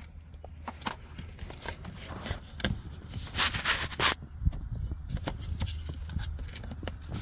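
Hands handling and plugging in the jump starter's heavy-duty clamp-cable connector: scattered plastic clicks and rubbing, with a louder scraping rustle about three and a half seconds in, over a low steady hum.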